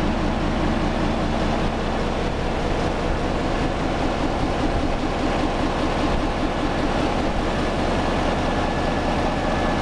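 Large multi-cylinder diesel engine of a 608 kVA generator set running steadily: a constant loud drone with a fast, even low pulsing and a faint thin whine above it.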